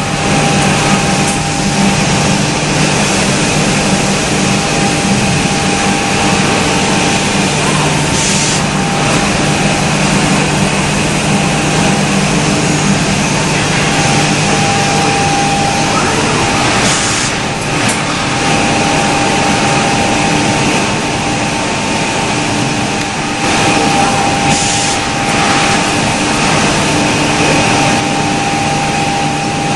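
HOMAG Optimat BOF 211/30/K CNC woodworking machining centre running: a steady, loud machine drone with a whine over a dense hiss. Short, high hissing bursts come about three times, roughly eight seconds apart.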